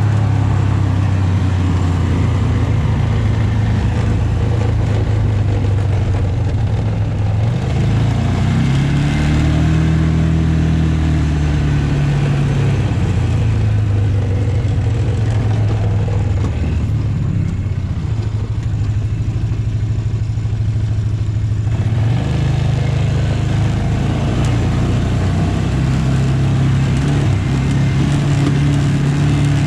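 Farm tractor's diesel engine running under way. Its speed rises and falls about a third of the way in, and past halfway the higher hiss drops off for several seconds before returning suddenly.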